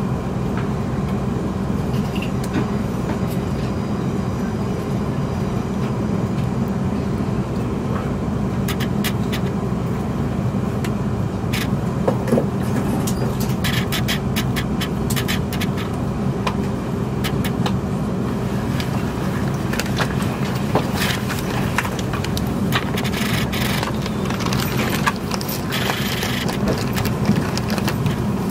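Inside the carriage of a Class 350 electric multiple unit running slowly into a terminus platform: a steady low hum and rumble, with scattered clicks and scrapes from the wheels and running gear from about eight seconds in.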